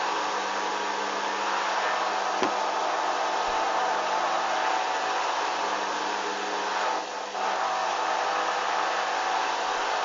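Hoover Dynamic washing machine running on a synthetics 30° programme: a steady rushing noise with a faint hum under it, a single click about two and a half seconds in, and a brief dip in level around seven seconds.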